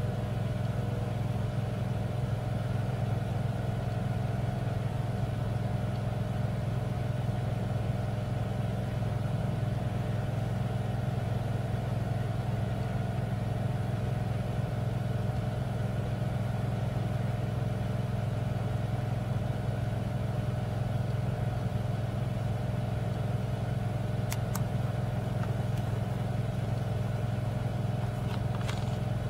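Heavy diesel truck engines running steadily under load with a deep, even drone that holds the same pitch throughout.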